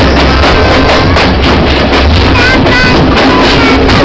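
Loud music with a regular beat and a melody line.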